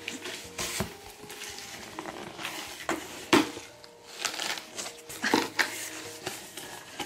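Cardboard shipping box being opened by hand: irregular rustling and scraping as the flaps are pulled back, with one louder knock about three seconds in.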